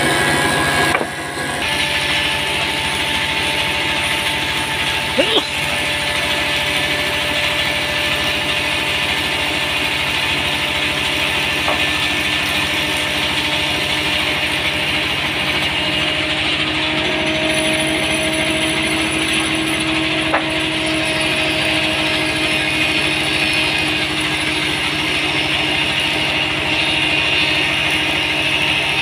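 Wood thickness planer running steadily as red meranti boards are fed through its cutterhead, with two brief sharp knocks.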